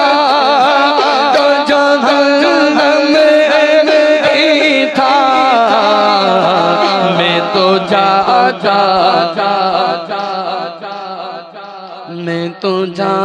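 Naat music: a voice sings long, wavering held notes over a steady low drone. Short percussive clicks come in during the second half.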